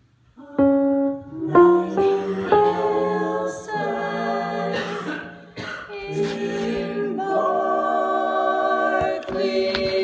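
Unaccompanied voices singing an alto part in long held notes, starting about half a second in.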